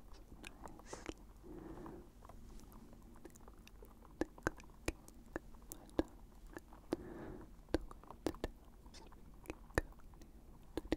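Close-miked ASMR mouth sounds: irregular wet, sticky clicks, with soft breathy whisper sounds about two seconds in and again around seven seconds.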